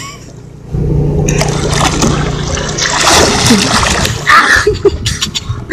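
Sea water splashing as a snorkeler swims right beside a boat, over a steady low engine hum. The sound comes in suddenly about a second in, and the splashing is loudest in the middle.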